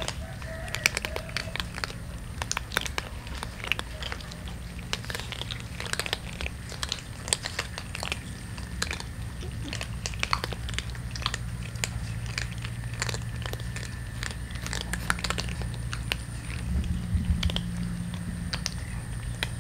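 Several cats crunching dry kibble, a dense irregular patter of small crisp crunches, over a steady low hum.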